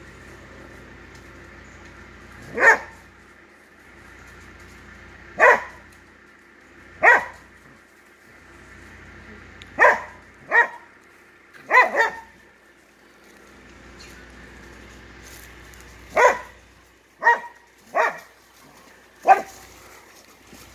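Blue Lacy dog barking at a raccoon it has bayed: about eleven short, sharp barks at irregular intervals, a few of them in quick pairs.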